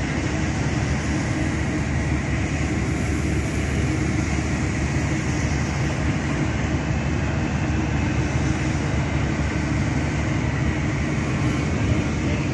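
A ship's engines and machinery running under way, a steady low drone with a constant rushing hiss over it.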